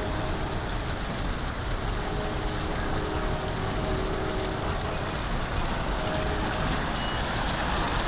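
Small fountain's bubbler jets splashing into the basin: a steady rush of falling water, with a faint on-and-off hum underneath.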